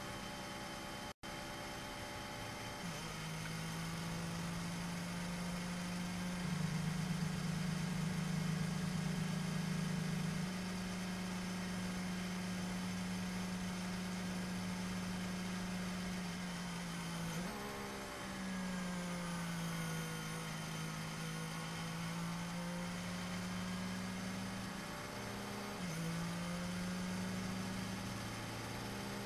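Mercedes W12 Formula 1 car's 1.6-litre turbocharged V6 hybrid engine idling at low, steady revs. Its pitch steps up and down slightly and dips and recovers briefly about 17 seconds in and again near 26 seconds.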